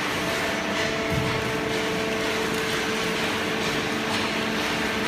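Hydraulic paper baler running: a steady machine hum with several constant tones over a broad even noise, the sound of its electric motor and hydraulic pump at work.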